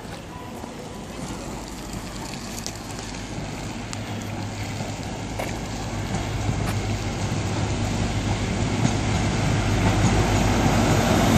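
High Speed Train (InterCity 125) arriving at the platform, its leading Class 43 diesel power car growing steadily louder as it approaches, with a low steady engine hum strengthening over the second half.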